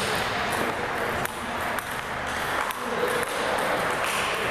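Table tennis balls clicking sharply off a table and paddles, a tick about every half second, over the steady background noise of a large gym hall.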